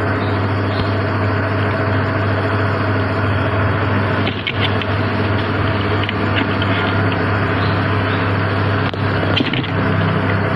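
A steady, loud machine-like hum with hiss over it, and a few short scrapes and taps of cardboard as cats move in and on the boxes.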